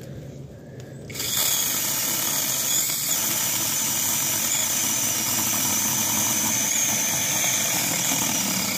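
Cordless battery mini chainsaw cutting through a branch, a steady whining buzz that gets louder about a second in as the chain works into the wood.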